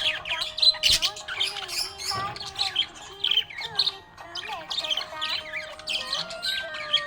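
Budgerigar chirping and squawking in quick, busy runs of short notes, with held tones of background music beneath.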